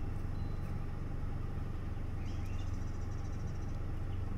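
A steady low engine hum, like a motor vehicle idling. Short bird chirps come and go over it, with a brief high buzzy trill a little past halfway.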